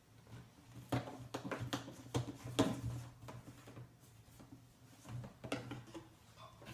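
Light clicks and taps of small objects, such as a glue bottle and containers, being handled on a table: a cluster of them about a second in and a few more near the end, over a faint steady hum.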